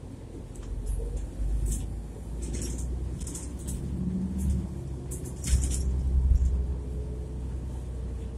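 City bus heard from inside the passenger cabin while it drives: a low engine rumble that swells twice, with a faint whine that slowly rises in pitch. Short clicks and rattles from the bus's interior fittings come and go.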